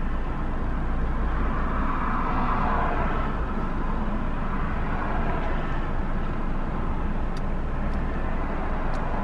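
Steady outdoor traffic and street noise with a low rumble, heard from inside a parked car through an open window, swelling a little about two seconds in.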